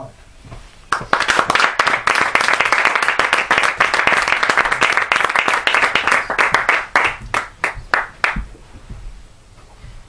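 Audience applauding. The clapping starts about a second in, stays dense, then thins to a few separate claps and stops a little after eight seconds.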